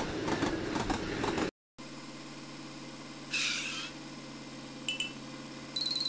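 A shinkansen rushes past with a loud rumble and rail clatter, cut off abruptly about a second and a half in. A dump truck's diesel engine then idles steadily, with a short hiss about halfway through.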